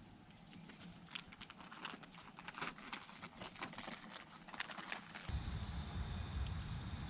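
Irregular rustling and crackling of small animals foraging, picking and scratching through seed or dry litter. About five seconds in it cuts off abruptly and gives way to a low rumble with a faint steady high tone.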